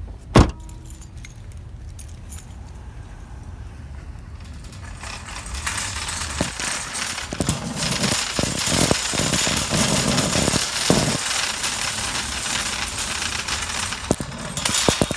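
A single sharp knock about half a second in, then from about five seconds a loud, dense rattling and rubbing noise with scattered low knocks, like a phone being handled or a shopping cart rattling.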